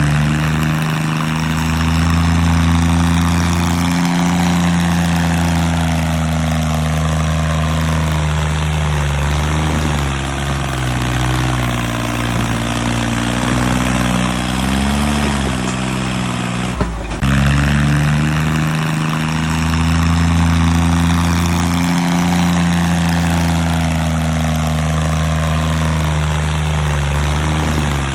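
Heavy construction machinery engine running steadily with a deep, even hum. Its pitch wavers for a moment, and there is an abrupt break about two-thirds of the way through before the same running sound resumes.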